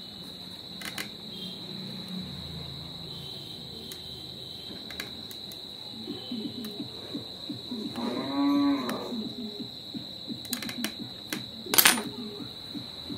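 One drawn-out pitched call, about a second long, about eight seconds in, over a steady high whine, with a few light clicks and one sharp knock near the end that is the loudest sound.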